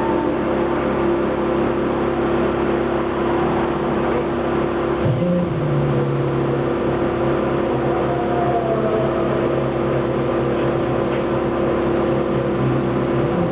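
McLaren MP4-12C GT3's twin-turbo V8 idling steadily, its idle stepping up slightly about five seconds in.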